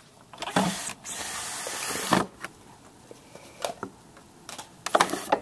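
Rustling and scraping handling noise as the camera is moved: two loud hissy bursts in the first two seconds, then a few light clicks and knocks near the end.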